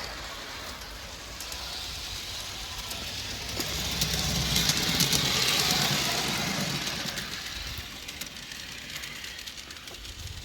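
Meccano-built garden train running on its two Meccano electric motors and differential-style gearbox, with a steady whirring of motors and gears and fine clicking. It grows louder about halfway through, as if passing close by, then fades away.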